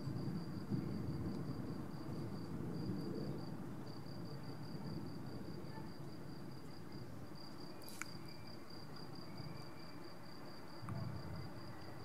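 Thunder rumbling low and fading away over the first few seconds, with a smaller low rumble near the end. A cricket chirps steadily in a fast, even pulse throughout, and there is a single sharp click about eight seconds in.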